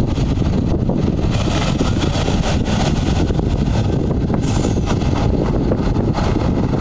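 Heavy-haul truck's diesel engine running steadily under load as it slowly pulls a multi-axle trailer with a heavy load, with wind buffeting the microphone.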